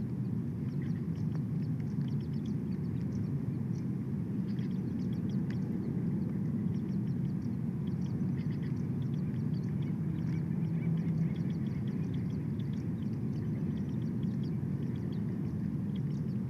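Steady low rumble of wind on an outdoor nest-camera microphone. Faint, short high chirps and ticks are scattered through it.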